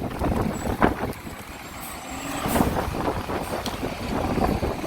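Strong wind buffeting the microphone: a steady low rumble with a few scattered knocks.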